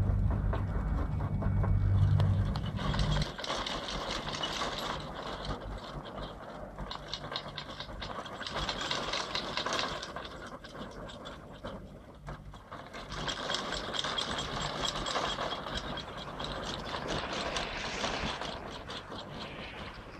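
A Doppelmayr three-seat chairlift's haul rope and chair grips running over a tower's sheave rollers: a rattling clatter that swells and fades in waves as chairs pass. A loud low rumble fills the first three seconds and stops suddenly.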